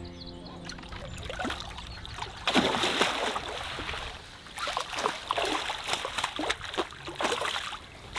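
Hooked carp thrashing and splashing at the water's surface as it is played into a landing net. The splashing starts sharply about two and a half seconds in and carries on as irregular splashes.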